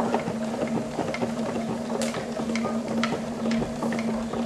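Wool being hand-spun into yarn on a spinning wheel: a steady hum with many small irregular clicks and rattles from the turning wheel and drawn fibre.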